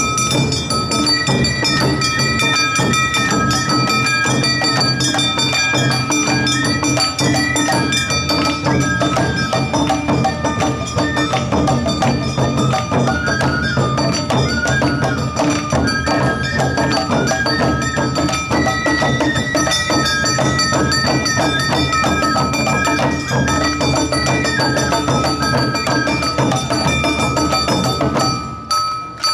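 Awa odori festival music from a dance troupe's band: drums and a ringing kane gong keep a brisk rhythm under a melody. The music dips briefly just before the end.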